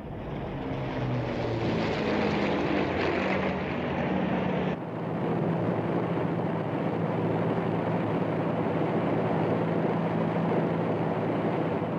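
Propeller aircraft piston engines droning steadily, swelling over the first couple of seconds. About five seconds in the sound changes abruptly to a steadier, duller hum.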